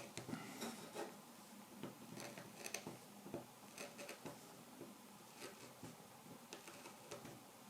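Tip of a Mora 106 carving knife scoring fine kolrosing lines into a wild cherry spoon handle: faint, irregular scratches and ticks.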